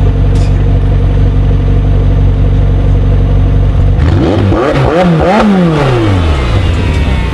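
McLaren 720S twin-turbo V8 idling, then revved about four times in quick succession partway through, its pitch rising and falling before settling back to idle. A faint falling whine follows the revs.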